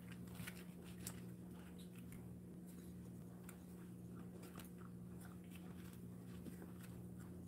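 Dachshund puppy crunching dry kibble from its food bowl: faint, irregular little crunches over a low steady hum.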